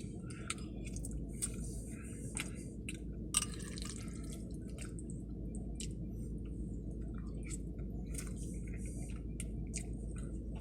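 Close-up chewing and wet mouth noises of a person eating spaghetti: irregular smacks and clicks over a steady low hum.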